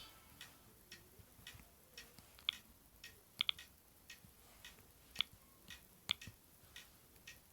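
Faint, irregular clicking of a Sony Ericsson W595 mobile phone's keys being pressed, about one or two clicks a second, a few of them louder than the rest.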